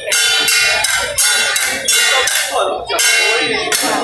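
Bell-like metallic percussion of a temple procession, struck loudly about two to three times a second and ringing briefly after each stroke.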